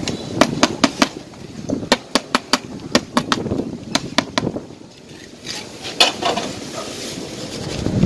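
Quick runs of sharp taps and scraping from a small hand tool working fresh sand-and-cement render on a cornice moulding, with a last single tap about six seconds in.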